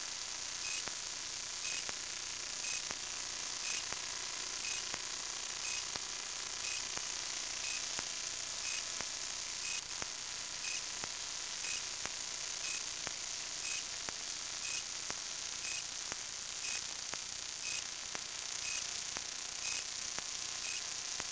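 Steady hiss of a small camera's own microphone hanging from a kite, with a faint short high tick about once a second.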